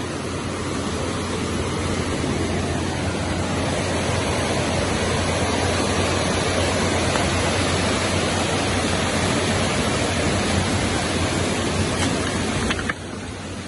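Steady rushing of a rain-swollen, muddy river running fast over stones, dropping suddenly in level just before the end.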